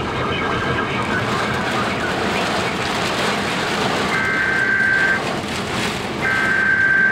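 Steady rush of storm wind around a vehicle. About four seconds in, a high electronic beep starts and repeats, each tone lasting about a second with a second's gap.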